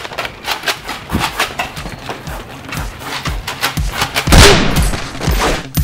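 Rapid gunfire, about four shots a second, with a louder, longer burst about four and a half seconds in.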